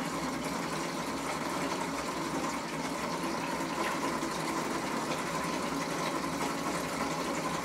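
Nitinol memory-wire spring heat engine running at a steady, even speed on the difference between iced and hot water: its pulleys turning with a continuous whirr as the spring churns through the water.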